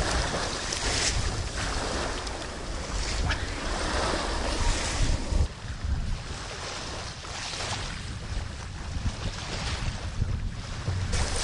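Strong wind buffeting the microphone with a low rumble, over waves washing on the shore; it eases a little about halfway through.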